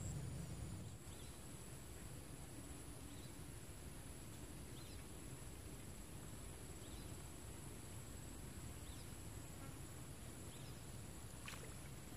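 Outdoor ambience: a steady high-pitched insect drone with short, faint bird chirps every second or two, over a low even hiss. A single faint click comes near the end.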